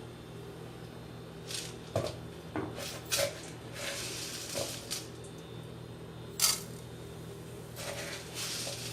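Tempering seeds going into hot oil in a metal kadai: a spoon clinks against the pan, with several short bursts of crackling and sizzle as the seeds fry. The loudest burst comes past the middle.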